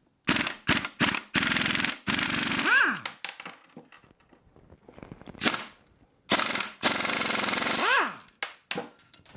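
An impact wrench hammering 14 mm-head transmission case bolts loose, in two rounds. Each round has a few short blips and then a longer run of rapid hammering, and ends with a whine as the motor spins down.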